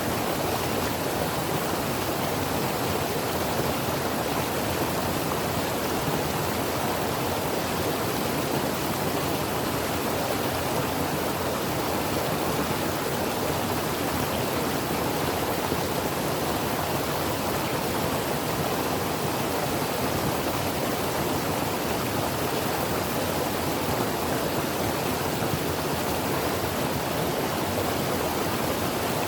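Creek water flowing over rocks: a steady, unbroken rush.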